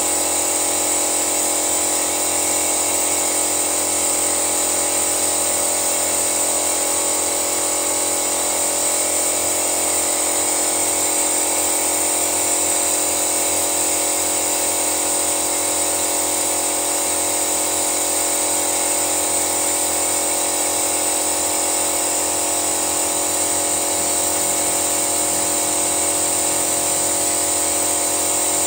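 Steady, high-pitched whine of an engine-flush machine's pump circulating cleaning fluid through a canister and hoses into the engine, unchanging throughout.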